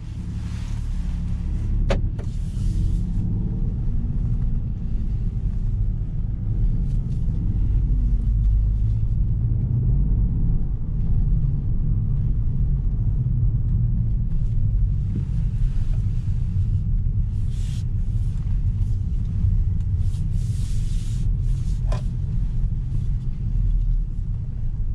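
Peugeot 208 1.2 PureTech 100's three-cylinder turbo petrol engine heard from inside the cabin, running at low speed under a steady low rumble of the car on the move. A sharp click comes about two seconds in, and another near the end.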